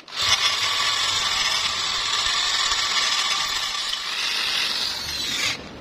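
Electric drill boring into a steel tube with a twist bit: a steady, loud grinding whine of bit cutting metal. It starts suddenly, runs evenly, sinks a little in pitch, and stops about five and a half seconds in.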